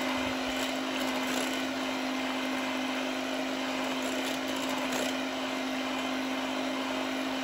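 Electric hand mixer running steadily, its beaters whipping chilled cream for Chantilly; a constant motor hum with a whirring noise above it.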